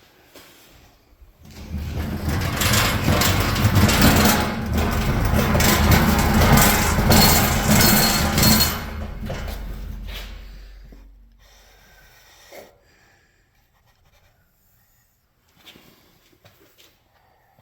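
Hydraulic press pump motor running: it starts about a second and a half in with a steady hum under a loud rushing noise, is switched off after several seconds and winds down over about two seconds. A few faint clicks follow.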